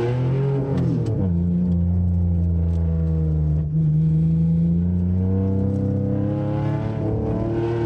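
Car engine working hard through an autocross run, heard from inside the car. The revs drop about a second in and hold steady, there is a brief dip near the middle, and then they climb slowly toward the end.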